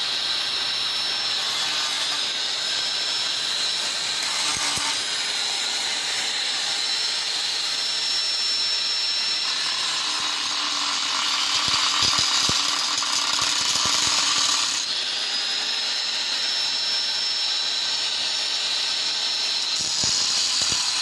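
Corded electric angle grinder cutting steel bars: a steady high-pitched whine, louder and rougher between about ten and fifteen seconds in.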